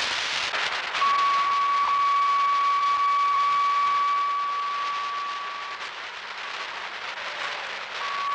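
Hissing static on a spacecraft's air-to-ground radio channel, with a steady high tone coming in about a second in, dropping away around six seconds and returning near the end.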